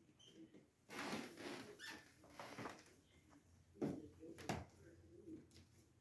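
Rustling and handling noise, loudest for about two seconds near the start, then two sharp knocks a little past halfway.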